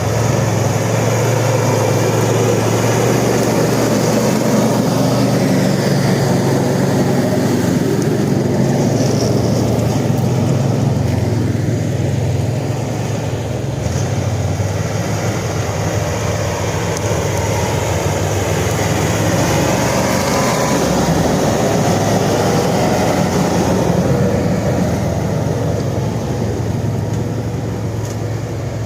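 Zenit Pro all-terrain vehicle's engine running steadily under way. Its pitch wavers up and down about two-thirds of the way through.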